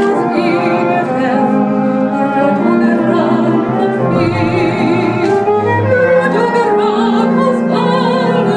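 A woman singing in an operatic style with a wide vibrato over instrumental accompaniment with strings, holding long notes.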